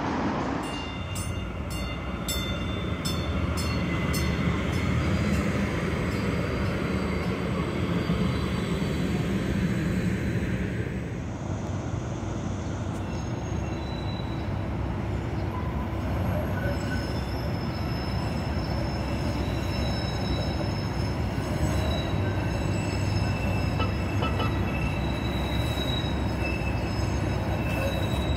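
Siemens light rail train running on street track, its steady electric hum joined by high-pitched whining wheel-squeal tones that grow as it approaches. A run of regular clicks is heard in the first few seconds.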